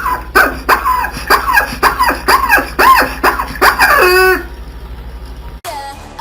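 Rapid run of short squeaky calls, each sliding up and down in pitch, from a toy chicken noisemaker; they stop about four seconds in. A short stretch of music follows near the end.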